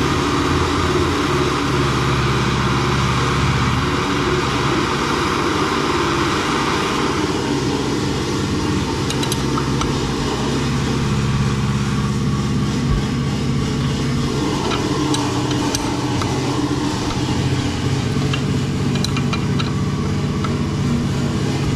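Handheld gas blowtorch hissing as it heats a seized nut on an exhaust manifold stud, the hiss dropping away about seven seconds in. Scattered metallic clicks follow as a ring spanner works the nut, over a steady low machine hum.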